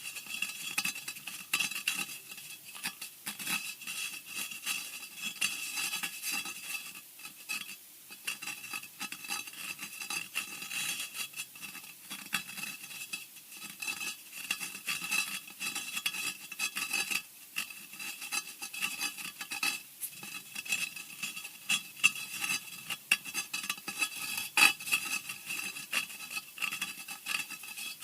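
Horror scratching sound effect: continuous, irregular scratching and scraping made of many small rasping clicks, with a thin high ringing edge and a few sharper scrapes.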